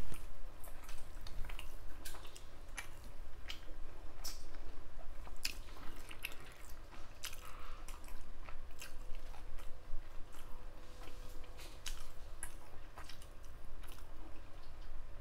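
A person chewing food close to the microphone: irregular wet mouth clicks and smacks.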